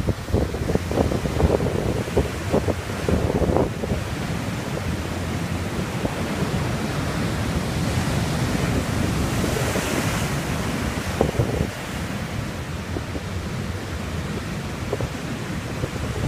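High ocean surf breaking and washing up the beach, with wind buffeting the microphone in gusts. The surf hiss swells loudest a little past the middle.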